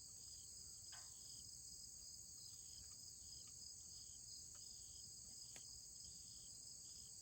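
Faint, steady high-pitched chorus of insects, with short chirps repeating just below it and a few soft clicks.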